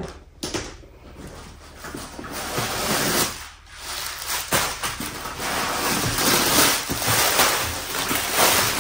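Crumpled white packing paper rustling and crinkling as it is handled and stuffed into handbags, with a brief lull about three and a half seconds in.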